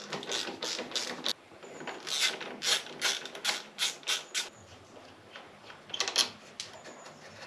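Socket ratchet clicking in short spurts as the front brake caliper's mounting bolts on a Yamaha Tracer 700 are undone.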